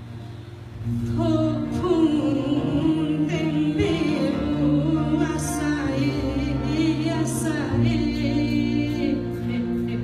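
A woman sings a melody with wavering vibrato over acoustic guitars and sustained low double bass and cello notes. The voice comes in about a second in.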